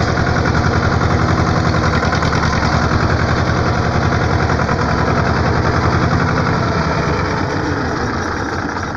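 A motor vehicle's engine running with an even, rapid pulse, getting a little quieter near the end.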